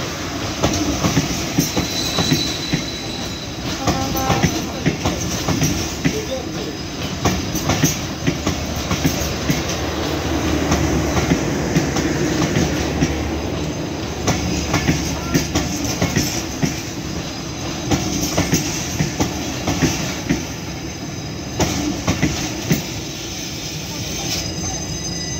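Passenger train coaches rolling past at close range, their wheels clattering over the rail joints in a run of sharp clicks. The sound eases near the end as the last coach clears the crossing.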